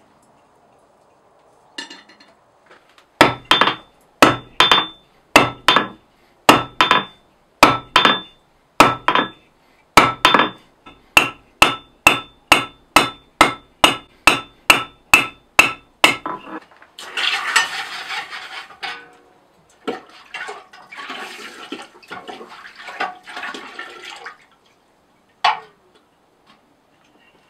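A hand hammer strikes hot mild steel on an anvil: about thirty blows at roughly two a second, each with a short metallic ring. After the hammering stops there are several seconds of hissing and crackling as the hot steel is quenched in a pot of water.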